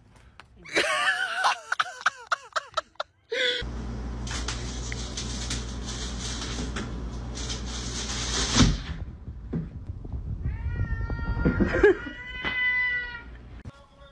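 A cat yowling in a long, wavering cry, then a steady hum and hiss, then a run of short meows near the end.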